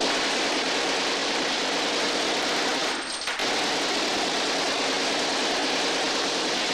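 Automatic gun firing one long, continuous burst, with a brief dip about three seconds in.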